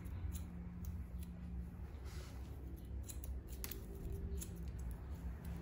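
Barber's scissors snipping hair in scissor-over-comb cutting, an irregular run of faint, quick snips. They are blending out the ridges left by the clipper on the sides.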